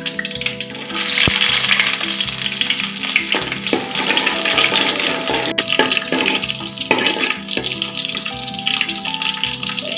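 Tempering sizzling in hot sesame oil in an aluminium pot: mustard seeds and chopped small onions frying. The sizzle grows sharply about a second in and stays strong while a ladle stirs the onions.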